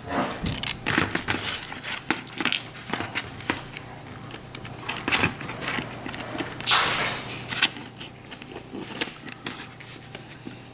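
Irregular small clicks, taps and rustles of hands handling an opened plastic inline lamp switch and its cord wires, fitting the wires into the casing, with a longer rustle about seven seconds in.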